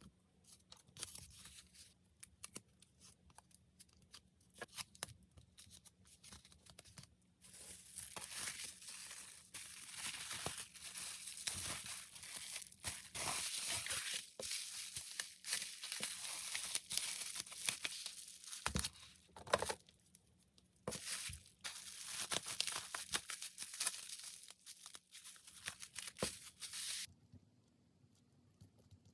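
Packing materials being handled and torn: irregular crinkling and tearing, densest from about seven seconds in until it stops shortly before the end.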